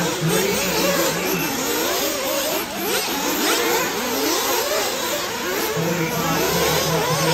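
Several 1/8-scale RC off-road buggies racing together, their motors repeatedly rising and falling in pitch as they accelerate and ease off.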